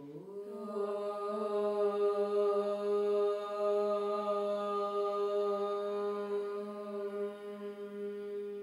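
Two women chanting one long Om together to open a yoga practice, the first of three. The pitch slides up briefly at the start, then the tone is held steady.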